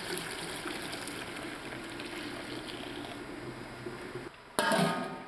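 Milk pouring in a steady stream from a stainless steel milk can into a large stainless steel bowl already holding milk. The pour stops a little after four seconds in, and a short, louder sound follows near the end.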